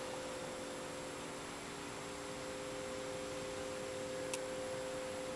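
Steady electrical-sounding hum made of a few steady tones, over even hiss, with one short click about four seconds in.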